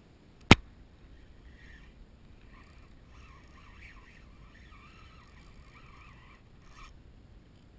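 A single sharp click about half a second in, from the fishing rod and reel being handled as a fish is hooked, then faint wind and water noise while the fish pulls on the bent rod.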